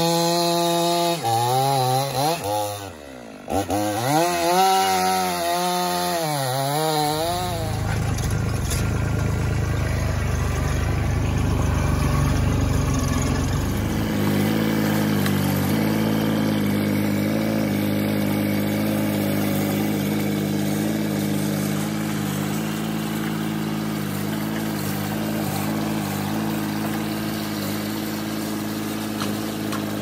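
A chainsaw bucking a log for the first several seconds, its engine pitch rising and falling as it cuts, with a brief drop about three seconds in. After that a Ditch Witch SK800 mini track loader's engine runs steadily as it grapples and loads logs.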